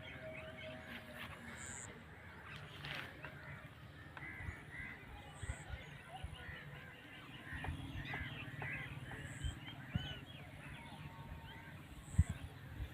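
A dense chorus of many small overlapping animal calls, steady throughout, over a low background hum with a few soft thumps.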